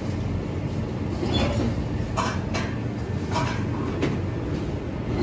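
Factory machinery humming steadily, with a few sharp clicks and knocks scattered through it.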